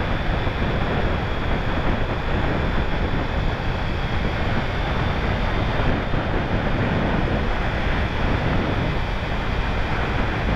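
Steady wind rush over the microphone of a motorcycle under way, with road and engine noise blended into it and no separate engine note standing out.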